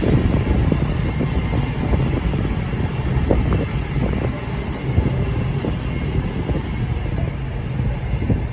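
CrossCountry Voyager diesel multiple unit running past and pulling away, its underfloor diesel engines and wheels making a steady low rumble, with a few sharp clicks.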